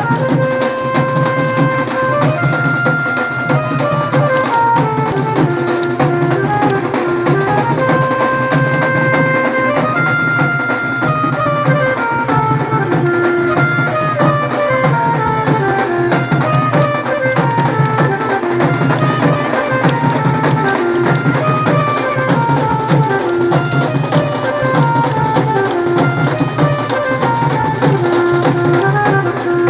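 Music: drums beating a fast, steady rhythm under a melody that runs up and down in stepwise phrases.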